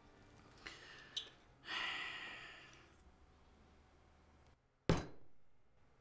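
A person sighs, a soft breathy exhale about two seconds in. Near the end a single sharp thud follows, the loudest sound, dying away over about a second.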